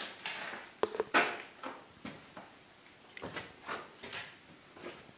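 Footsteps on a concrete basement floor, about two to three a second, with two sharp knocks about a second in.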